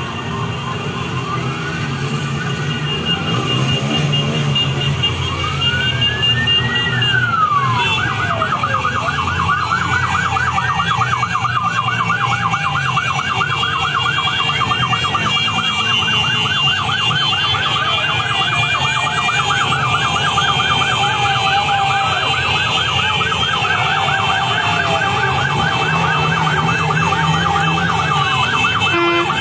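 Several escort sirens sounding at once: slow rising-and-falling wails, joined about eight seconds in by a fast yelp that keeps going, over the steady rumble of vehicle engines.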